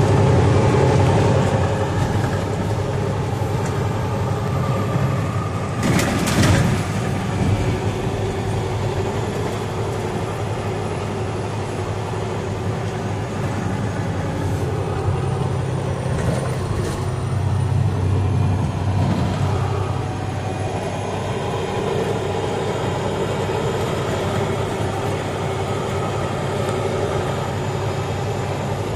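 Steady engine drone and road noise heard from inside a large truck's cab while driving. A brief knock sounds about six seconds in.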